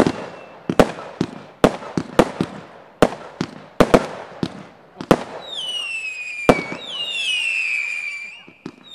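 Sky Unlimited SKB505 Super Show 5 fireworks firing: a rapid, irregular string of sharp bangs as shots launch and burst. From about halfway, whistling shots take over, several whistles sounding together and falling in pitch, with one more bang among them.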